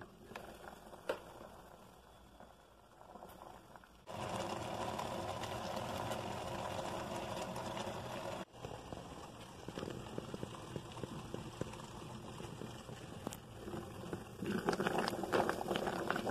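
Philips Walita electric rice cooker boiling and steaming. A few soft clicks come first. About four seconds in, a steady rush of boiling starts suddenly and then cuts off, followed by quieter bubbling and crackling that grows louder near the end.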